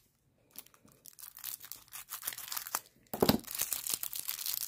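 Thin plastic packaging crinkling and tearing as a sleeve of nail-extension forms is pulled open by hand. The rustling starts after a brief pause, with a short thump about three seconds in, then denser crinkling.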